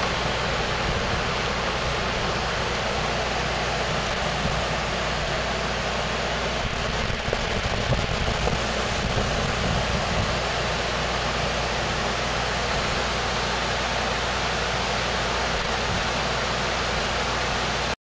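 A steady, even hiss with no rhythm or pitch, which cuts off abruptly near the end.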